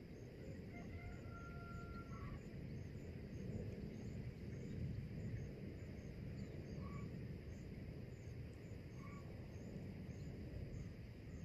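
Riverside outdoor ambience: a steady low rumble with faint bird calls, one held call about a second in and short chirps later, over a faint high ticking of about two to three a second.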